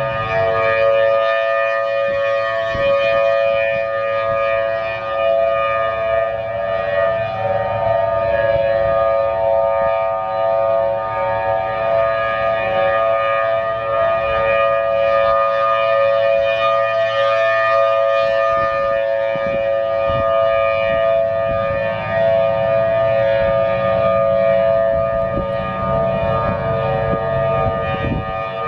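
Outdoor tornado warning siren sounding a steady tone, several pitches held together at once with no rise or fall.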